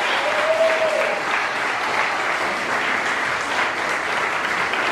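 Congregation applauding steadily, with one short cheer near the start.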